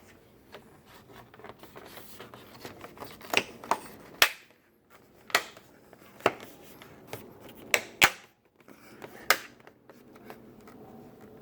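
Plastic tail-light trim piece on a Mini Countryman being pressed onto the light, its clips clicking and knocking into place: about eight sharp clicks spread irregularly over several seconds, two close together near the middle.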